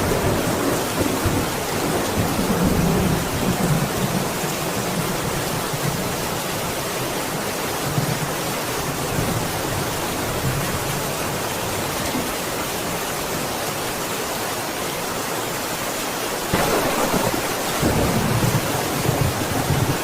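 Steady rain falling, with rolling thunder rumbling low in the first few seconds and again in the last few seconds, where it swells louder.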